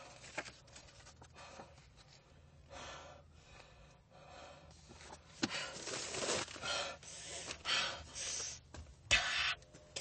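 A woman crying, with irregular gasping breaths that grow louder in the second half.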